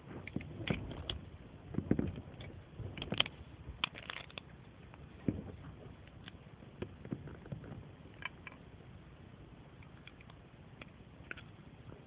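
Plastic Lego bricks handled and clicked, a scatter of sharp little clicks and knocks with some handling rumble, busy over the first few seconds and only occasional later.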